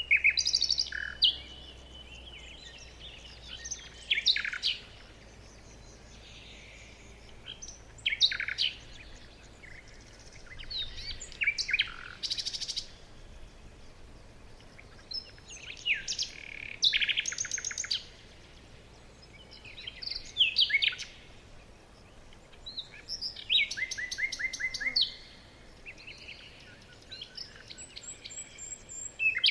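Songbirds singing in bursts of quick chirps and trills that come every three to four seconds, over a faint steady background.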